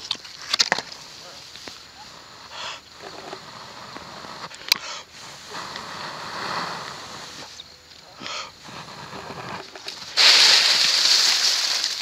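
A man blowing hard, puff after puff, into a smouldering coconut-fibre tinder bundle to fan an ember into flame. About ten seconds in, a much louder, steadier rushing hiss starts.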